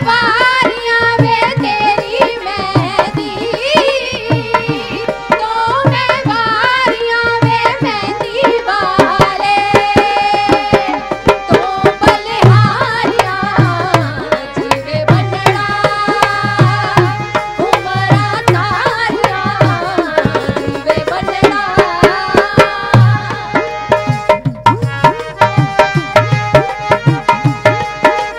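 Two women singing a Punjabi folk song, accompanied by a dholak and a harmonium, with a quick, steady drum beat throughout. Near the end the voices drop out, and the drum and harmonium play on.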